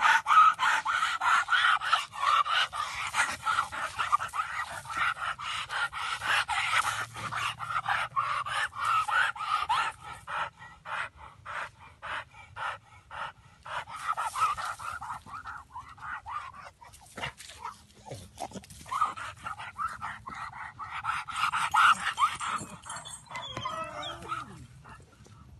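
American Pit Bull Terrier panting hard and fast, with high whines, while straining at its chain. The sound is loudest in the first half and again near the end.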